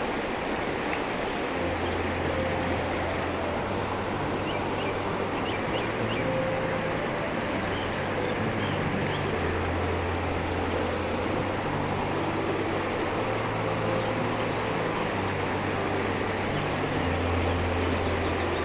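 A rocky river rushing steadily. Soft, low held notes of background music run underneath.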